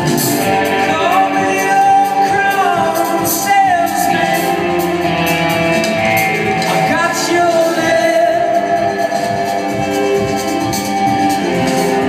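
Live rock band music with a male voice singing long, gliding notes over guitar and band accompaniment.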